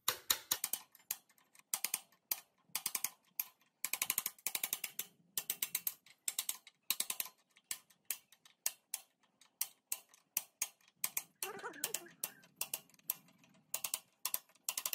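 Ratchet wrench clicking in quick runs of sharp ticks, with short pauses between runs.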